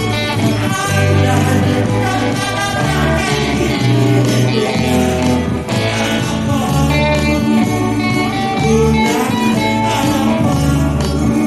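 Live band playing an Indonesian nostalgia pop song: guitars over a bass line that changes note about every half second to a second, with a voice singing.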